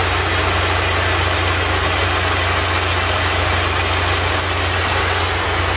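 Handheld gas torch burning with a steady hiss over a low rumble, its flame heating the end of black poly irrigation tubing to soften it so a fitting can be slid on.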